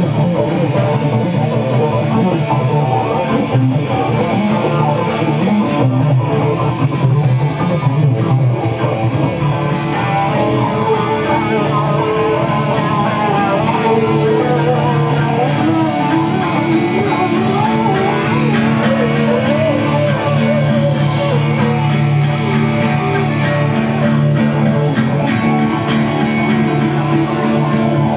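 An acoustic guitar and a Stratocaster-style electric guitar played together, with held chords and wavering lead notes in the middle.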